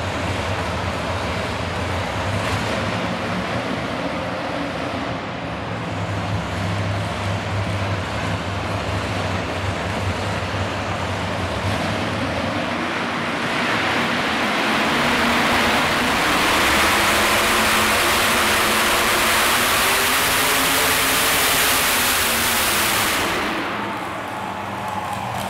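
A modified pulling tractor's supercharged engines idle at the line, then go to full throttle about halfway through as the tractor launches and drags the weight sled. The run builds to its loudest and stops abruptly about two seconds before the end.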